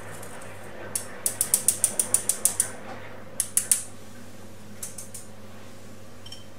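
Small metal mesh sieve shaken over a bowl to sift powder through, rattling in a quick run of about a dozen clicks. A few more clicks follow about a second later.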